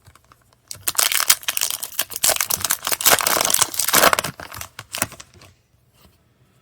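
Foil booster pack wrapper crinkling and tearing as it is opened: a dense run of crinkling starting about a second in and dying away after about four seconds.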